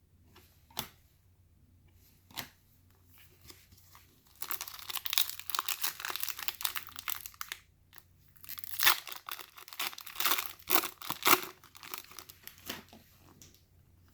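Foil trading-card pack wrapper being torn open and crinkled. Two short taps come first, then two spells of tearing and crinkling, about four seconds in and again about nine seconds in.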